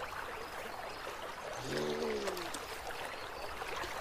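Water trickling and sloshing as a beaver hauls itself out of the pond onto its dam with a dripping load of mud and weed. About halfway through comes one short, low, voice-like tone that bends in pitch.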